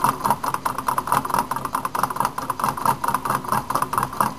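Homemade alcohol-fired Stirling engine running, its moving parts clicking and rattling in a rapid, even rhythm as the crank turns.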